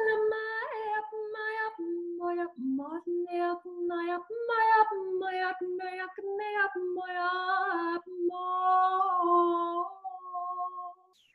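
A woman singing wordless 'light language' syllables: short chanted notes hopping between two or three pitches, a few per second, with a quick upward slide about two and a half seconds in. Near the end the notes lengthen into held tones that fade out.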